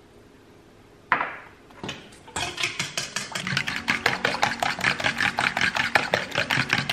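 Fork beating eggs in a stainless steel bowl, a fast run of clicks of metal on metal that starts about two seconds in; a single sharp clink against the bowl about a second in.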